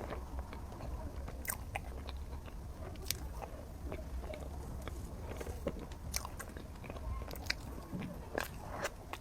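A person eating chocolate lava mille-crepe cake close to the microphone: chewing, with many small scattered clicks of mouth sounds.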